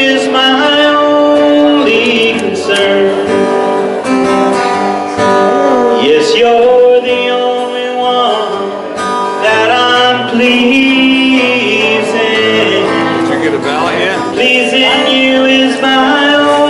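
A man singing a gospel hymn and accompanying himself on acoustic guitar.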